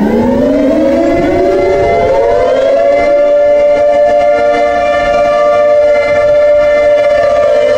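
Outdoor civil defense warning siren being tested, winding up: its pitch rises steeply and levels off about three seconds in, then holds a steady wail on two tones a little apart.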